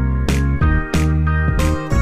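Music with a steady beat: sustained pitched notes over evenly spaced percussive hits, about one and a half a second.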